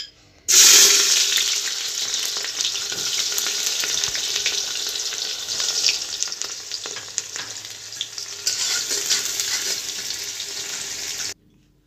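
Sliced onions sizzling in hot oil in a pressure cooker as they fry towards golden brown, with a spoon stirring them. The hiss starts suddenly and loudest as the onions drop into the oil, settles into a steady sizzle with light spoon scrapes and clicks, and cuts off abruptly near the end.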